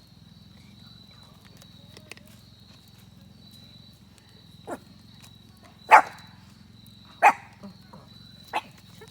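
Dog barking four times, about one bark every second and a bit, starting about halfway through; the second bark is the loudest. The dog is barking at a wild animal that has come near the campsite.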